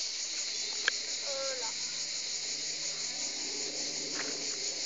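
Steady, high-pitched chorus of insects shrilling, with a single faint click just under a second in and a brief faint voice or call just after it.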